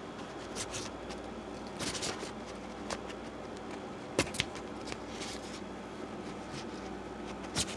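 Intermittent rustling and a few sharp clicks from a portable clothes dryer's nylon hamper and metal hanger bar being handled, over a steady low hum.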